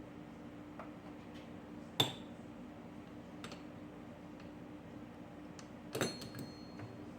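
Metal clinks from tools or metal parts being handled: one sharp clink about two seconds in and a short cluster near six seconds, one of them ringing briefly, over a steady low hum.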